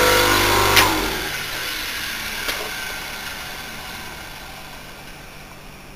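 Western Electric 1.1 kW single-phase capacitor-run motor with a pulley on its shaft, humming as it runs, switched off with a click about a second in. It then coasts down, its whir fading away steadily.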